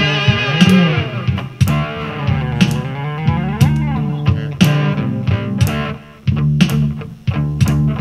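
Instrumental blues-rock passage with no singing: guitar over bass guitar and drums. Notes glide down and back up in long slides or bends in the first half, over a steady beat.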